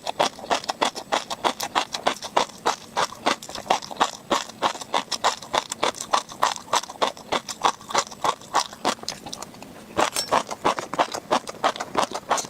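Close-miked chewing of tobiko (flying fish roe), the tiny eggs crunching and popping in quick, even clicks, about three or four a second. The chewing stops for about a second roughly three quarters of the way through, then starts again.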